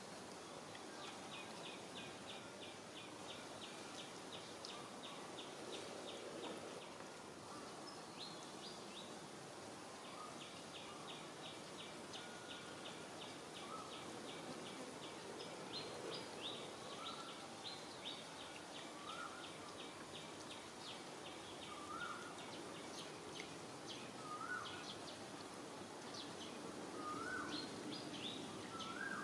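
Faint outdoor ambience: a bird repeats a short rising call every second or two, over a long, even run of high-pitched pips several a second that pauses briefly about a third of the way in.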